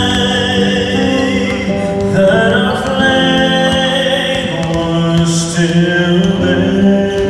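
A man singing into a microphone on a stand, with long held notes that step from one pitch to the next.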